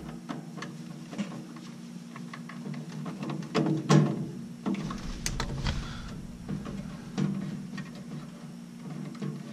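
Music playing in the background, with clicks and clatter from wire connectors being handled and pushed onto a furnace control board's terminals; the loudest clatter comes about four seconds in.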